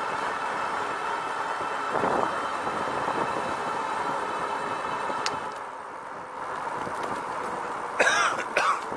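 RadRover electric fat-tire bike riding on pavement, with a steady whine from its hub motor and fat tyres that fades for about a second past the middle and then comes back. Two short, louder bursts near the end.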